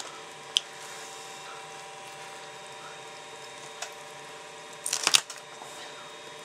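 Walleye skin and flesh being worked loose by hand: a sharp click about half a second in, a faint tick, then a short cluster of wet crackles about five seconds in, over a steady low hum.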